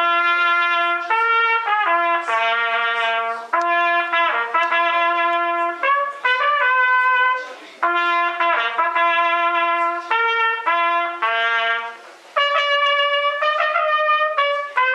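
Solo trumpet playing a slow melody of held notes, the same phrase played twice, then rising to longer, higher notes near the end.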